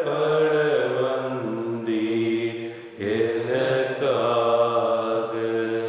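Slow devotional hymn sung in long held, sliding notes, in two phrases with a short breath between them about three seconds in.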